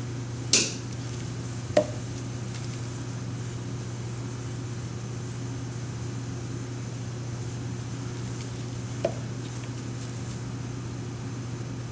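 Plastic pouring cups of soap batter knocking during pouring: three short knocks, the loudest about half a second in, another near two seconds and a lighter one near nine seconds, over a steady low hum.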